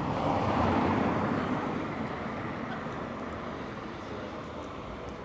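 A motor vehicle passing, a rushing noise that swells in the first second and a half and then slowly fades away.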